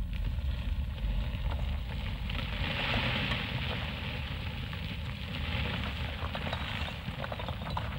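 Sound effects of a stone statue breaking apart: a low rumble under dense crackling and a hissing rush that swells about three seconds in.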